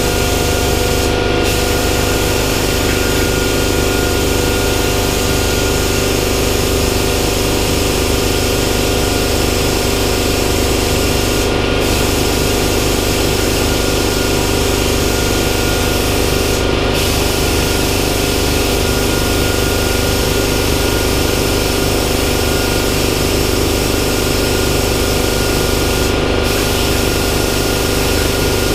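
Hypertherm 65 plasma cutter on a CNC table cutting steel sheet: a loud, steady hiss of the arc and air with a steady hum beneath. The hiss briefly thins out four times.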